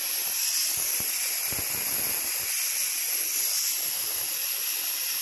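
Compressed natural gas hissing steadily out of a car's opened CNG cylinder as it is emptied before hydrostatic testing.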